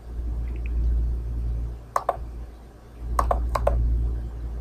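Sharp clicks of a laptop's touchpad buttons: a quick pair about two seconds in, then three more about a second later, over a steady low hum.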